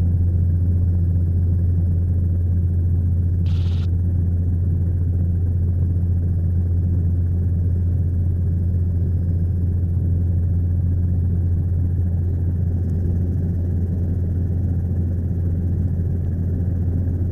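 Helicopter cabin noise: the steady low drone of the rotor and engine, unbroken throughout, with a short burst of hiss about three and a half seconds in.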